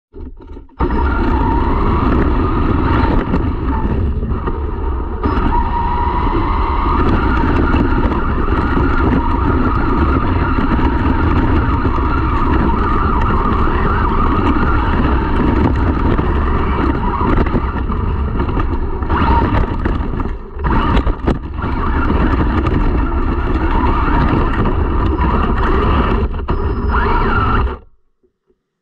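RC monster truck's motor and drivetrain whining steadily while its knobby tyres rumble over asphalt and dry grass, heard from on board the truck. The noise drops out briefly twice about two-thirds of the way through and stops abruptly near the end.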